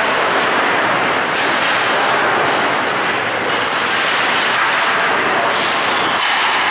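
Steady, noisy rush of an ice hockey rink during play, with skates scraping and carving the ice.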